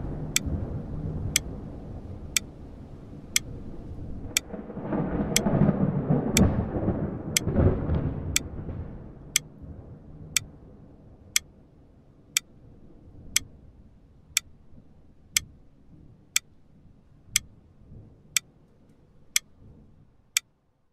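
Clock ticking steadily, about once a second. Under it, a deep rumble swells and dies away in the first half.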